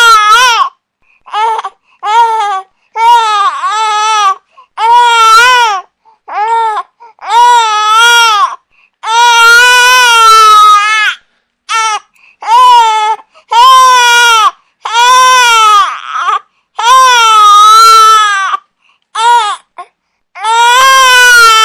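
Infant crying: a run of loud, high-pitched wails, each half a second to two seconds long, separated by short gaps for breath.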